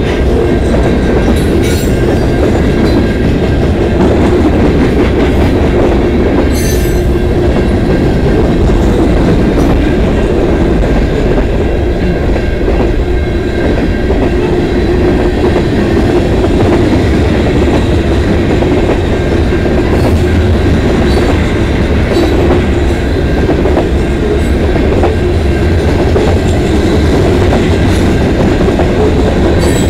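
Freight cars of a long CN mixed freight train rolling past close by: a steady loud rumble of steel wheels on the rails, with clacks as the wheels cross the rail joints.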